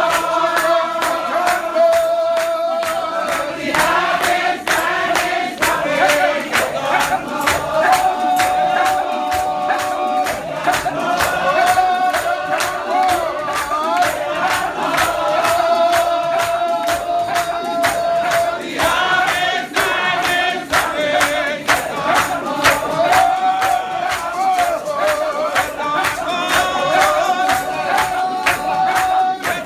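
Shouter Baptist congregation singing a hymn together as a choir of mixed voices, the melody holding long notes, over a steady percussive beat of hand percussion and clapping.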